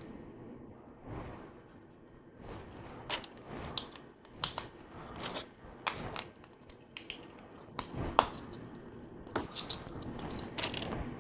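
Plastic LEGO pieces being pressed together and handled: a scatter of short, sharp clicks at irregular intervals, about a dozen of them.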